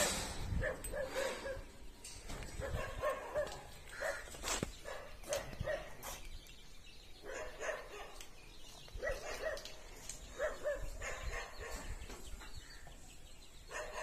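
Animals calling in short, repeated cries, in clusters, with scattered sharp clicks and knocks between them.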